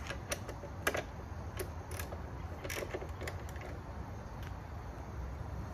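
Hands working small hardware and tools on a motorcycle: a scatter of light, sharp clicks and taps, about ten in the first four and a half seconds, over a low steady rumble.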